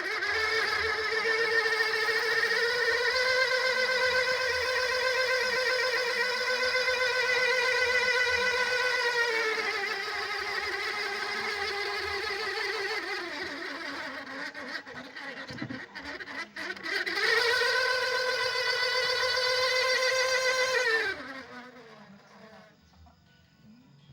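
Electric fan running with a steady whining, buzzing drone: the 'snoring' noise of a faulty fan. The drone sinks in pitch and weakens about ten seconds in, rises again about seventeen seconds in, and fades out about twenty-one seconds in.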